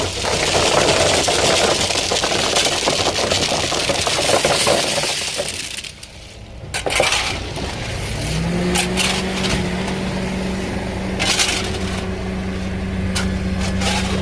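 An engine running loudly with a dense noise, dipping briefly about six seconds in, then settling into a steady hum. Several sharp metallic clinks and knocks sound over it.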